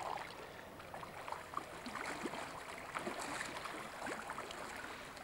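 Farmed salmon churning and splashing at the surface of a fish-farm pen as they are fed: many small, irregular splashes over sloshing water.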